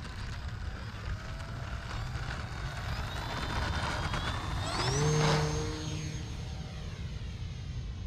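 E-flite Turbo Timber RC plane's electric motor and propeller throttling up for takeoff: a whine that climbs in pitch about five seconds in and then holds steady and high. Wind rumbles on the microphone throughout.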